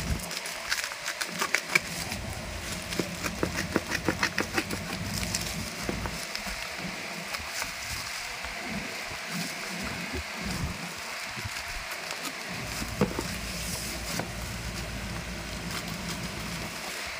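Scissors snipping through the tape and black plastic wrapping of a parcel, the plastic crinkling as it is handled, with a run of quick clicks in the first few seconds.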